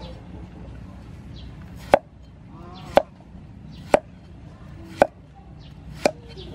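A cleaver chopping a green tomato on a wooden chopping board: five sharp knocks of the blade on the board, about one a second.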